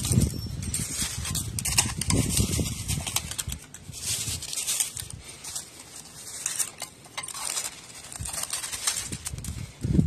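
Dry leaves and wood chips rustling and crackling in irregular bursts of small clicks as a cat paws and noses through them.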